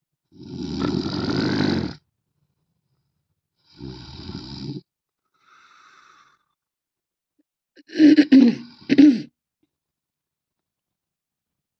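A man snoring in separate bursts. The first snore lasts about a second and a half, followed by a shorter one and a faint one. Near the end comes a quick cluster of about three louder snores.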